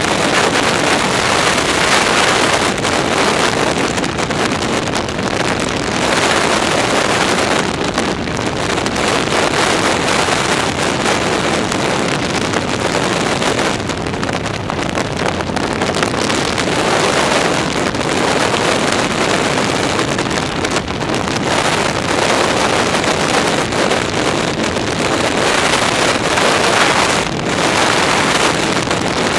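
Wind rushing over a skydiver's camera microphone in flight: a loud, steady rush of wind noise that swells and dips every few seconds.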